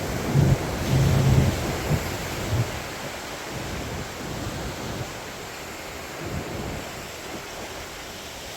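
Wind buffeting the microphone over the steady wash of surf on a beach, with heavy low gusts in the first three seconds that then ease. The sound cuts off abruptly at the very end.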